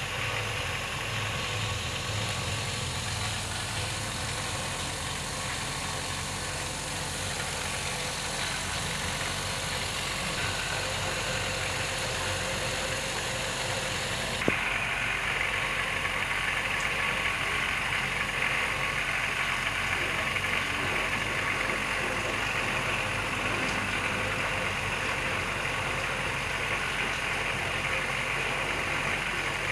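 Steady, machine-like background drone with hiss at an even level. Its tone changes abruptly at a single click about halfway through.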